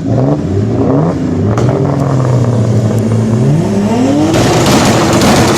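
Turbocharged BMW E30 engine revving: a few quick rising blips, then held at fairly steady revs, then climbing again about three and a half seconds in. A loud rushing noise of spinning tyres joins about four seconds in.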